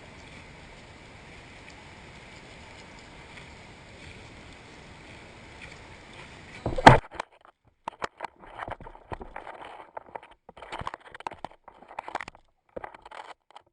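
Steady outdoor background noise, then a single loud knock about seven seconds in, after which the steady noise stops and a run of short, irregular rustles and knocks follows.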